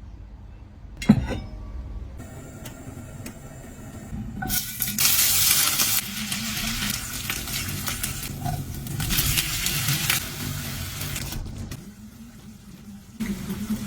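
Food sizzling in a hot pan while being stirred, the hiss swelling loudly twice, with a sharp knock of utensil on pan about a second in.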